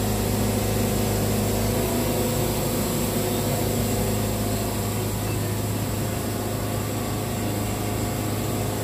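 Wood-Mizer portable sawmill's engine running steadily while the blade saws through a log, a continuous low drone.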